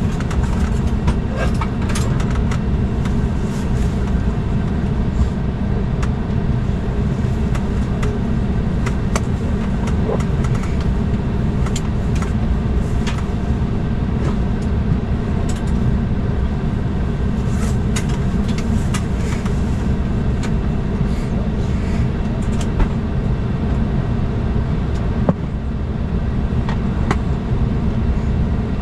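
Steady low rumble and hum inside an Embraer E195 airliner's cabin before departure, with scattered small clicks and knocks.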